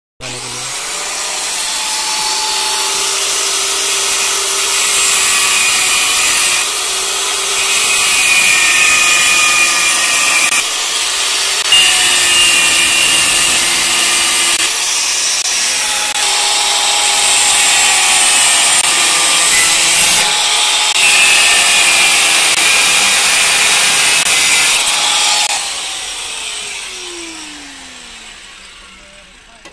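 Electric angle grinder cutting into the metal of an e-bike frame: it starts suddenly, runs with a steady whine and a grinding hiss for about 25 seconds, then is switched off and winds down with a falling tone near the end.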